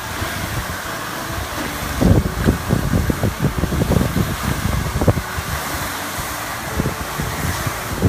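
Fountain jets spraying and splashing into a stone pool, a steady rushing hiss, with wind buffeting the microphone in gusts from about two to five seconds in.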